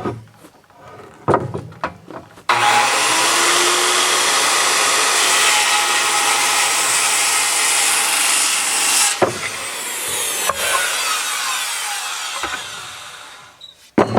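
A power saw cuts through a wooden board for about seven seconds after a few knocks of handling the wood. It stops suddenly, and the blade winds down with a falling pitch.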